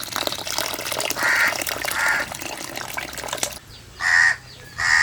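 Crows cawing: four short harsh caws, two over a dense hiss that stops about three and a half seconds in, and two louder ones near the end.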